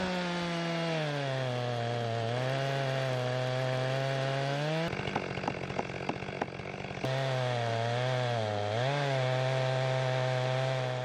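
Stihl MS 462 two-stroke chainsaw on an Alaskan chainsaw mill cutting a maple log, its engine pitch sinking early on as it settles under load in the cut. About five seconds in the saw sound breaks off for a couple of seconds of scattered knocks, then the saw comes back, still under load, with a brief dip in speed near the end.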